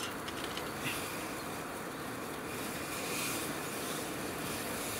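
Brass Svea 123 white-gas stove burning at a high flame with a steady rushing hiss.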